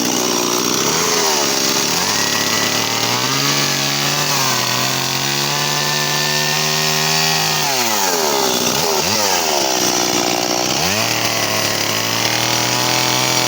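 Stihl petrol chainsaw running at high revs, held steady for several seconds, then dropping off and being blipped up and down twice before being held at high revs again.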